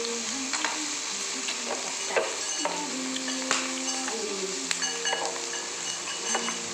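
Cooked whole prawn being pulled apart and chewed by hand: a crackly hiss with scattered sharp clicks of shell breaking.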